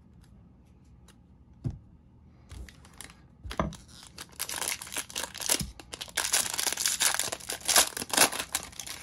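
Wrapper of a jumbo pack of baseball trading cards being torn open and crinkled, loudest in the last few seconds, after a single knock just under two seconds in.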